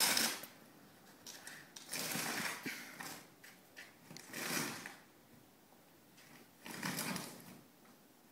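Snow shovel scraping along a paved driveway as it pushes snow: four scrapes, one every two to two and a half seconds, with quiet gaps between.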